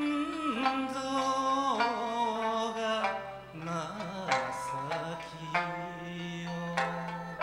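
Okinawan sanshin plucked in a steady folk-song accompaniment, with a man's voice singing a long, wavering, gliding line over it for the first few seconds.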